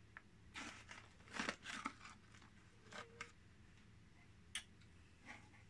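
Faint crinkling of a snack pouch as a piece of dried mango is pulled out of it, in a few short rustles, with a sharp click a little after four seconds in.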